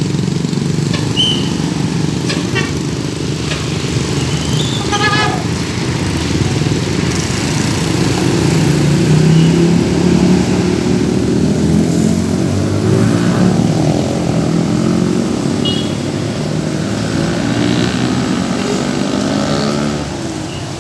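Diesel tour bus engine running and pulling away amid passing road traffic, its pitch rising as it accelerates about halfway through, with a few short high beeps in the first few seconds.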